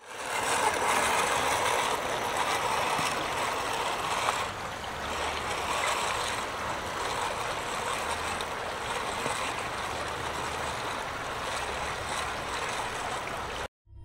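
Fast-flowing creek water rushing over rocks and a small waterfall, a steady hiss-like wash that cuts off suddenly near the end.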